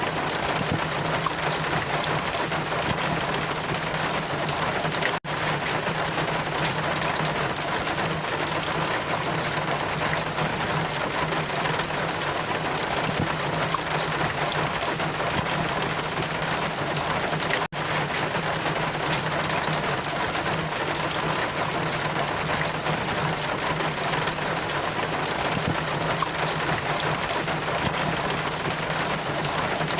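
Steady rain with wind: a continuous even hiss over a steady low hum, cutting out for an instant twice, about 5 and 18 seconds in.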